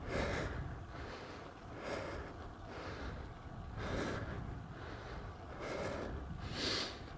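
A cyclist's heavy breathing close on a lavalier microphone while pedalling uphill: hard, noisy breaths every second or two, over a low steady rumble of road and wind noise.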